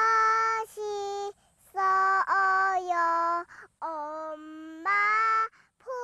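A young girl singing a short, made-up song in Korean about something being very delicious, holding each note in short phrases with brief pauses.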